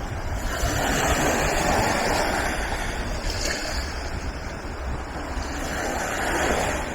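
Wind buffeting the microphone with a low rumble, over the wash of sea surf that swells twice and eases.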